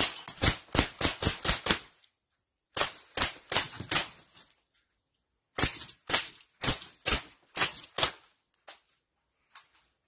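Umarex M1A1 Thompson CO2 BB gun firing steel BBs in three rapid bursts of sharp pops, about five shots a second, followed by a few faint clicks near the end.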